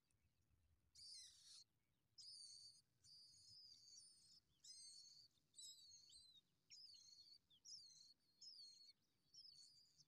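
Skylark nestlings begging for food: faint, high-pitched chirping calls in short repeated runs, starting about a second in and going on steadily.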